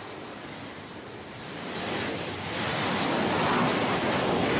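Jet aircraft noise in flight: a steady rushing of engine and airflow with a high hissing whine, which swells about a second and a half in and then holds.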